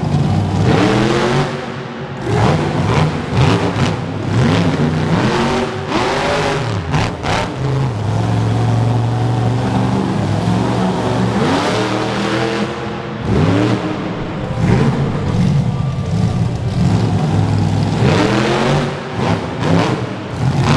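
Ice Cream Man monster truck's engine revving hard over and over, the pitch climbing with each rev. It is held at high revs for a few seconds around the middle.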